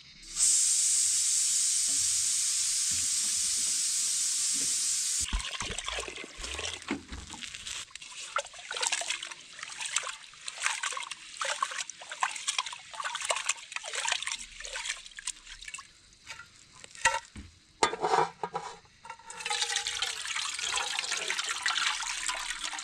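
Water pouring steadily, then irregular splashing and sloshing as something is washed by hand, and then a second steady pour near the end.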